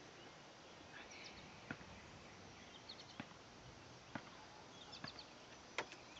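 Near silence: faint outdoor background hiss with a few soft clicks and faint short high chirps scattered through it.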